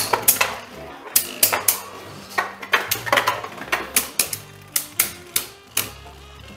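Beyblade Burst spinning tops, Stellar Hyperion among them, clashing in a plastic stadium: irregular sharp plastic clacks, a few a second, growing sparser near the end. Background music plays underneath.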